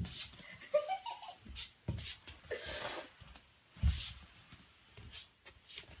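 A corgi in a knitted sweater being dragged across a hardwood floor by a rope tug toy: dull thumps on the floor and a short sliding swish about two and a half seconds in.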